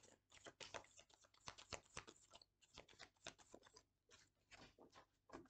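Faint rustling and rapid light snapping of a deck of reading cards being shuffled by hand, the clicks thinning out toward the end.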